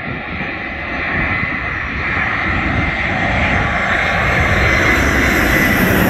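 An easyJet Airbus A320-family airliner's jet engines on low final approach, growing steadily louder as the plane comes in overhead, with a steady high fan whine.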